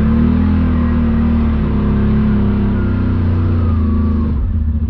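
Side-by-side UTV engine running at steady throttle. It drops back to a choppier idle about four seconds in.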